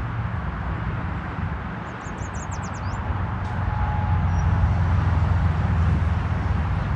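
Low, steady rumble of a landing aircraft's engines, growing louder over the last few seconds. A short run of bird chirps comes about two seconds in.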